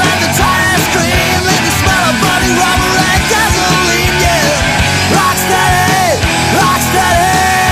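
Loud rock music as a soundtrack, with bending, sliding lead lines over a steady beat of drum hits.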